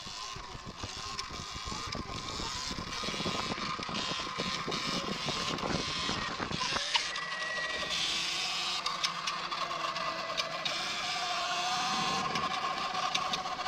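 Sur-Ron X electric dirt bike on the move: the electric motor's whine over a rush of wind on the microphone, with light clatter. The whine climbs in pitch about eight seconds in as the bike picks up speed.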